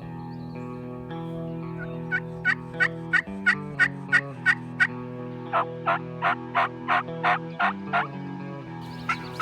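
Turkey calls: two runs of about ten sharp, repeated notes, about three a second, with a short break between them. They play over a steady music bed.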